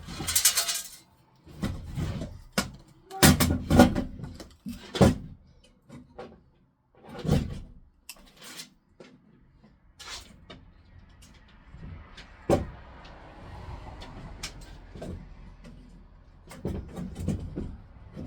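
Irregular knocks, clunks and clicks of tools and hardware being handled. They are loudest and closest together in the first half, then thin out to scattered quieter clicks.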